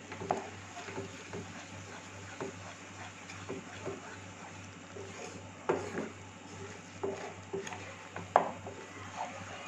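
Wooden spatula stirring a thick tomato-and-cream masala in a non-stick kadhai, scraping and knocking softly and irregularly against the pan, the loudest knocks about six and eight and a half seconds in. A steady low hum runs underneath.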